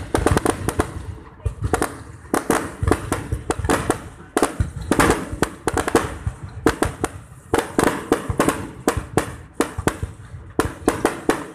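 Fireworks display: a rapid, irregular barrage of sharp bangs and crackles, several a second, with short lulls between volleys.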